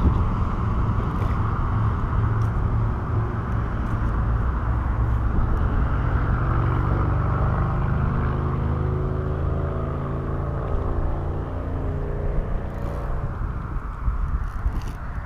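Road traffic: a steady low rumble of passing vehicles, with one vehicle's engine hum rising out of it in the middle and fading away near the end.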